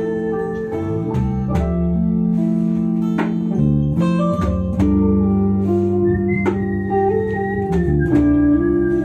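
Instrumental passage of a small live band: acoustic guitar strummed in a steady rhythm over electric bass and electric guitar, with long held keyboard chords.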